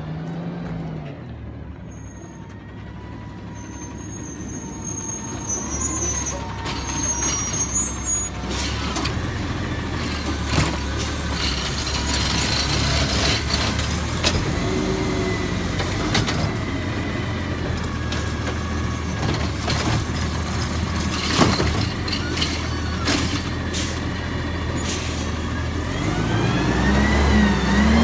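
Automated side-loader garbage truck's diesel engine running as it pulls up to the curb, with air brakes hissing and repeated clatters and knocks from the lifting arm picking up and emptying a curbside bin, including one sharp bang. Near the end the engine revs up as the truck moves off.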